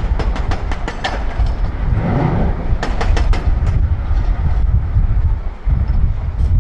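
Volvo L350F wheel loader's heavy diesel running under load as it works a rock pile, a deep steady rumble. A rapid clatter of sharp clicks comes in the first second and again about three seconds in.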